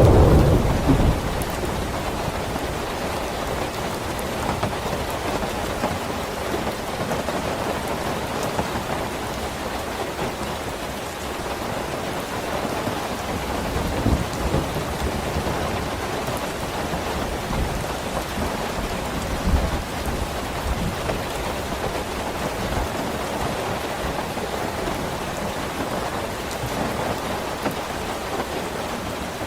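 Steady, heavy rain falling, with a low roll of thunder in the first second or so and fainter low rumbles later.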